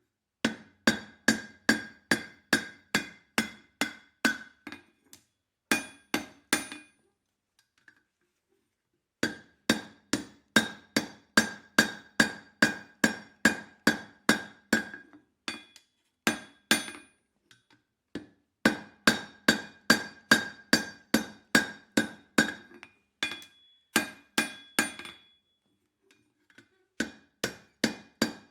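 Blacksmith's hand hammer striking hot steel on the anvil in steady runs of about three blows a second, the anvil ringing after each blow, with short pauses between the runs.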